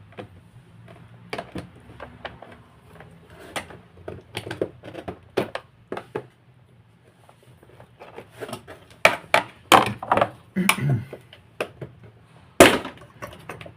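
Clicks and knocks of hard plastic parts being handled and worked loose with a screwdriver while an Electrolux ProSilent vacuum cleaner's housing is taken apart, with a run of louder knocks past the middle and one sharp knock near the end.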